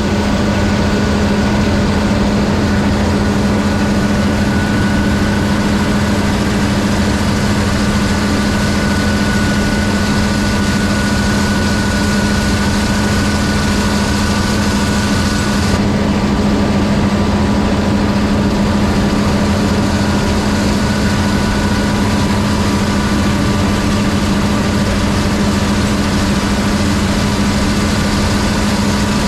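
Gleaner combine engine running at a steady speed while harvesting, a constant low hum with a faint high whine above it.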